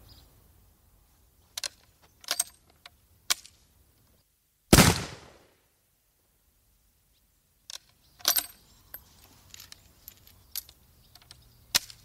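A single musket shot about five seconds in, a sharp bang whose sound dies away over about half a second. Before and after it come scattered short metallic clicks and rattles.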